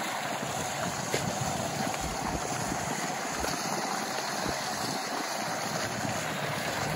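Steady splashing of an outdoor fountain's jets falling into its pool, with wind gusting on the microphone in a few low thumps.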